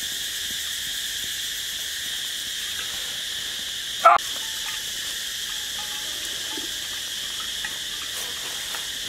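Steady high-pitched chorus of insects, with one short loud sound about four seconds in.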